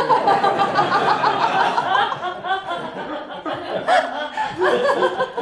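Several people laughing together, with overlapping voices.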